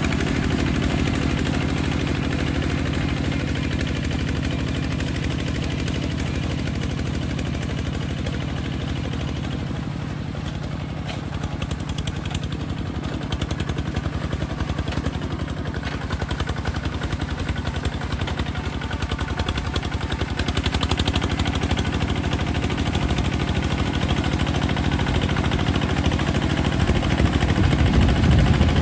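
Kubota bulldozer engine running steadily, growing louder in the last couple of seconds.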